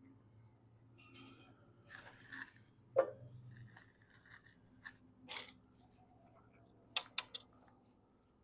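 Metal mower hardware being handled and fitted by hand: scattered scrapes, rattles and taps, with three sharp metallic clicks in quick succession about seven seconds in.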